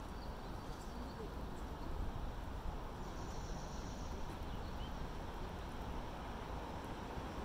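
Steady outdoor ambience in a city park: a low rumble of wind and distant traffic, with a faint high thin tone about three seconds in.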